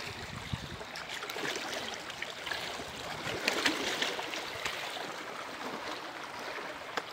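Small waves lapping and splashing against shoreline rocks, a steady wash with irregular splashes that is loudest about halfway through.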